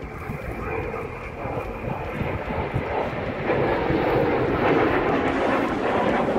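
Jet noise from a pair of Dassault/Dornier Alpha Jets flying over in formation, their turbofan engines growing steadily louder through the pass.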